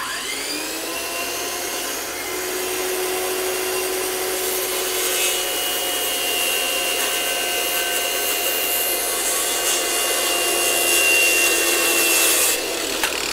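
Corded circular saw starting up and cutting a long angled cut through a softwood board. The motor spins up to speed and runs steadily under load, its pitch holding without bogging down because the kerf is held open so the blade doesn't bind. Near the end the blade clears the wood and the sound eases.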